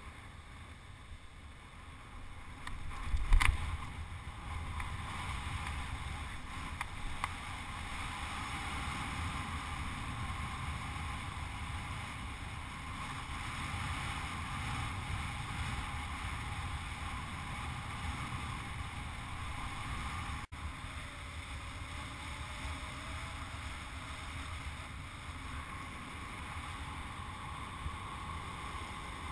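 Wind rushing over the microphone of a camera mounted on a hang glider, steady once the glider is airborne in strong wind. A sharp loud knock about three seconds in.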